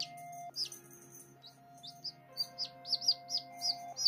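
A baby chick peeping: short, high, falling peeps, a few at first and then coming quicker, about two or three a second by the end. Soft background music with held notes plays underneath.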